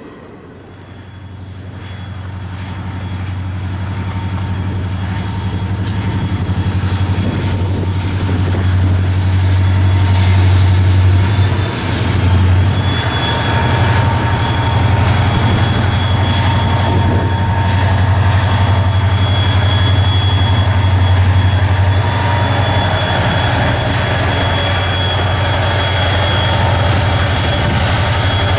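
Norfolk Southern diesel-electric freight locomotive approaching and passing slowly, its engine drone growing louder over the first several seconds and then holding steady, with a steady high whine above it.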